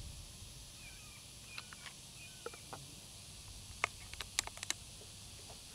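A quick run of sharp clicks from the bolt of a Benjamin Fortitude PCP air rifle being worked by hand, about four seconds in. Before it, faint outdoor ambience with a few soft bird chirps.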